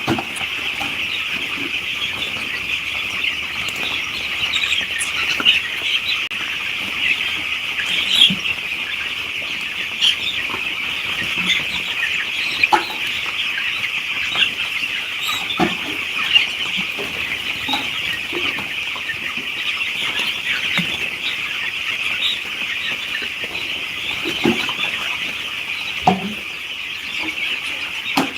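A large flock of poultry chicks peeping nonstop, a dense high-pitched chorus, with scattered louder single calls and a few short knocks.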